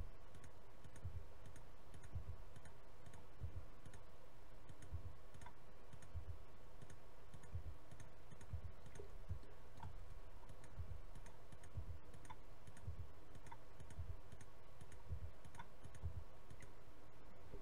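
Computer mouse clicking, soft scattered clicks every second or so, over a steady faint hum.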